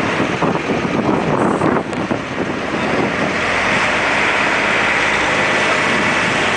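A dump truck's engine running, rough and uneven for the first two seconds, then settling into a steady run from about three seconds in.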